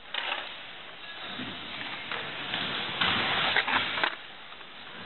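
Skateboard wheels rolling and carving around a bowl: a rushing noise that swells twice as the board picks up speed, with a couple of sharp knocks about three and a half to four seconds in.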